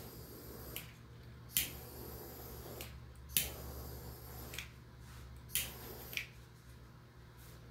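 About six short, sharp clicks at uneven intervals, over a low steady hum.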